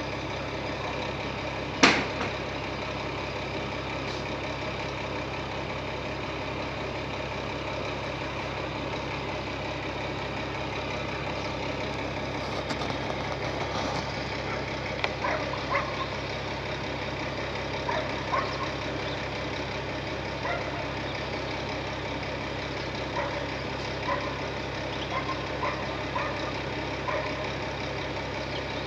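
Heavy tipper truck's diesel engine idling steadily with a low hum. A sharp knock comes about two seconds in, and short faint calls are scattered through the second half.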